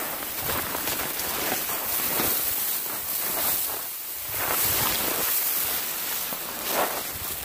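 Branches and leaves of dense scrub brushing and rustling against a hiker pushing through it, with irregular footsteps, over a continuous rush of wind on the microphone.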